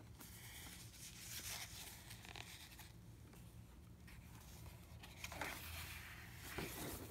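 Soft, irregular rustling of paper as scrapbook pages with pasted newspaper clippings are handled and turned.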